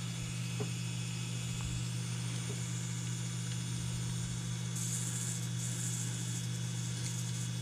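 Motor and gearing of a Heljan Class 35 Hymek model locomotive running on the bench, powered through crocodile clips to the wheel contacts: a steady low hum. About five seconds in, a scraping hiss joins for about two seconds as a screwdriver works at weathering powder and grease inside the bogie.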